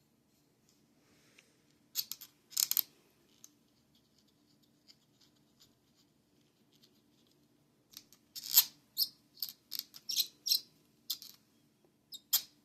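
Handling noise: a series of short clicks, taps and scrapes from a small object being handled. There is a brief cluster about two seconds in and a denser run from about eight seconds in until near the end.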